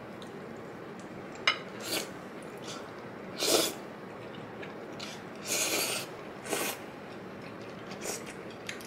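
Eating sounds at the table: a sharp click about a second and a half in, then a handful of short rasping, rustling noises, the loudest about three and a half seconds in.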